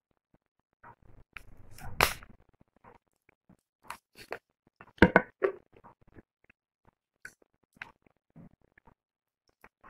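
Cooked crab legs being cracked apart by hand and bitten, with sucking and chewing of the meat: scattered sharp cracks and clicks, the loudest about two seconds and five seconds in.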